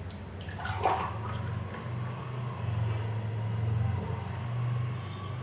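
Blended lassi, a thin sweet yogurt drink, being poured from a blender jar into a glass, with a short knock about a second in.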